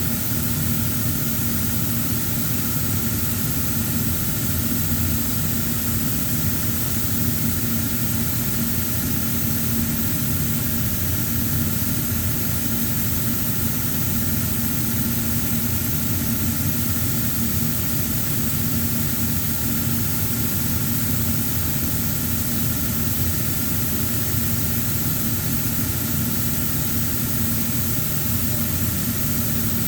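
A machine running steadily, a constant hum with a hiss over it that does not change.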